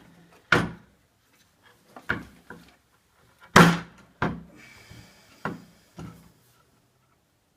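A string of sharp knocks and clunks, about seven over several seconds, the loudest about three and a half seconds in. This is the Mosin Nagant's metal action being pressed and worked down by hand into the Archangel stock to seat it.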